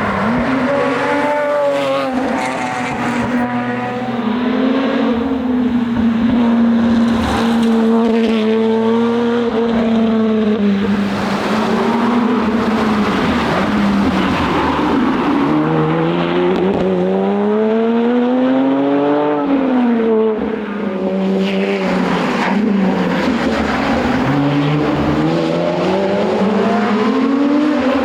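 Lotus Exige Sport 350's supercharged V6 engine being driven hard. It revs up through the gears and drops back repeatedly, with one long climb and a sharp fall about two-thirds of the way in.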